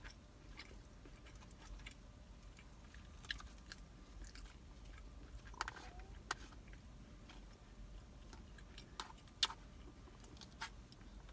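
Close-up eating sounds: a person chewing food, with scattered small crunches and mouth clicks, over a faint steady low hum.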